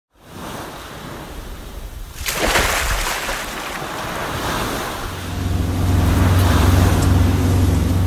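Sea waves washing, with a sharp rushing sweep about two seconds in; from about five seconds a low steady hum joins and grows louder.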